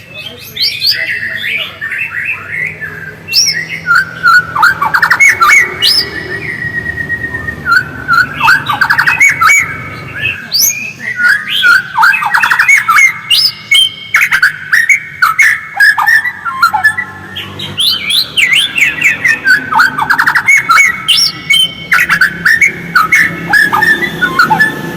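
White-rumped shama (murai batu) singing loudly and continuously, in fast phrases of rapid trills and quick sweeping whistles with brief gaps between them.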